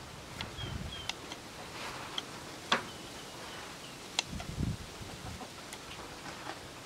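A knife slicing a cucumber against the thumb, the cuts coming as sharp, crisp clicks about once a second, the loudest near the middle, with a couple of soft low thumps as slices drop into a wooden mortar. Birds chirp faintly in the background.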